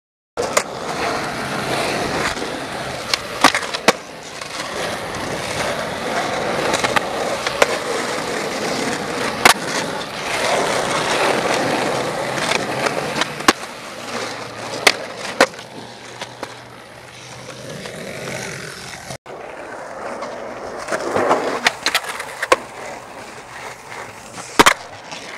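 Skateboard wheels rolling over concrete in a steady rumble, broken by many sharp clacks of the board striking the concrete. The rolling drops off at a cut about two-thirds of the way through and is quieter after it.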